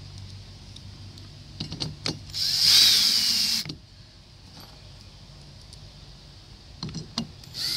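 Cordless drill driving screws into an aluminium transom plate on a plastic kayak. A few clicks come first, then a motor run of just over a second with a high whine that falls as the drill stops. More clicks follow, and the drill starts again near the end.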